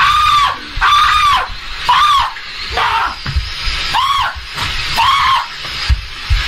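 A man screaming in alarm at a lit indoor firework fountain: a string of short, high-pitched screams, about one a second.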